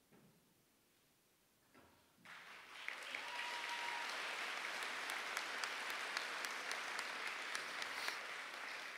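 Audience applause starts about two seconds in, quickly builds to a steady, dense patter of many hands clapping, and begins to taper off near the end.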